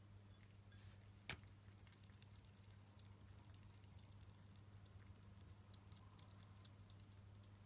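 Ragamuffin kitten lapping water from a bowl: faint, quick wet ticks, with one sharp click about a second in, over a low steady hum.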